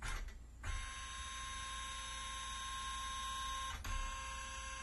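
Epson flatbed scanner running an overview scan: the scan-head motor starts with a click and runs with a steady whine of several tones, with a second click just before four seconds in.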